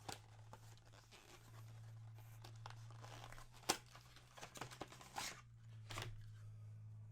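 A small box of packaging being opened and handled: scattered rustling and tearing, with one sharp click a little over halfway through, over a faint steady low hum.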